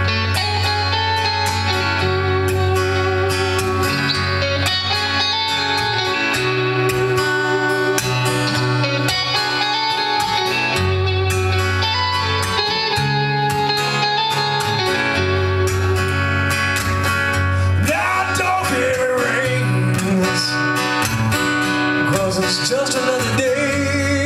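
Live song on acoustic guitar: an instrumental passage without lyrics over a steady bass line, with sliding, bending notes in the last few seconds.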